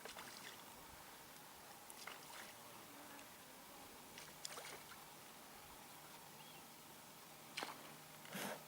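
Oars of a rowboat dipping and splashing in calm water, a short stroke every two seconds or so, the last one the longest and loudest.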